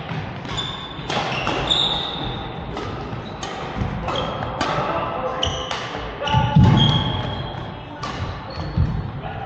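Badminton doubles rally on an indoor court: a run of sharp racket hits on the shuttlecock, sneakers squeaking on the court floor, and footfalls. A heavier thud comes about six and a half seconds in.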